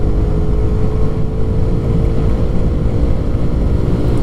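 Lance PCH 125 scooter riding along at road speed: its engine running with a steady drone, under a low rumble of wind on the microphone.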